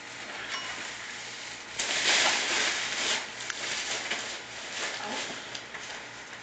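A cat eating soaked dry kibble out of a bowl of water: wet crunching and lapping with scattered small clicks, loudest for about a second near the middle.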